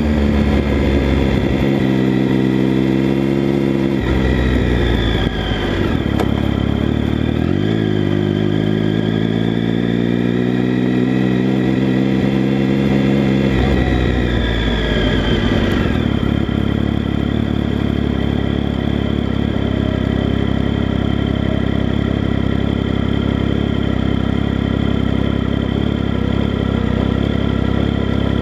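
Triumph Speed Triple 1050's three-cylinder engine through an Arrow exhaust, revving up with a rising pitch, easing off about four seconds in, then pulling up again. Near the middle it drops back and settles into a steady, even run.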